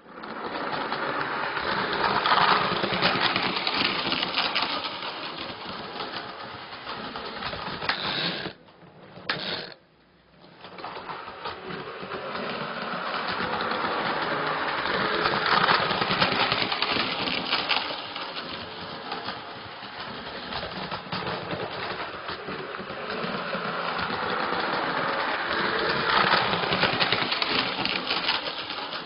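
Analog Electrotren model train running on the layout track: a dense, rapid mechanical rattle of its small motor and wheels that swells and fades, broken off twice for a moment about nine seconds in.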